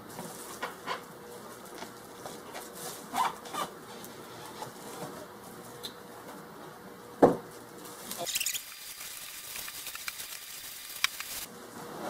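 Molded pulp packing inserts scraping and squeaking as they are pulled off a plastic-wrapped coffee maker, with one sharp knock about seven seconds in, followed by plastic wrap crinkling.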